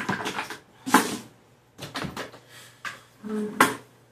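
A few sharp knocks and clatters of things being handled and moved, the loudest one about three and a half seconds in.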